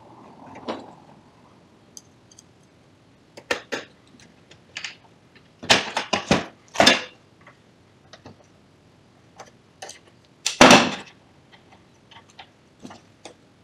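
Clicks, clacks and knocks of plastic and metal parts as a copier's fixing (fuser) assembly is handled and worked on with a screwdriver. There is a quick run of loud knocks about six to seven seconds in and a single louder knock near eleven seconds, with light ticks between.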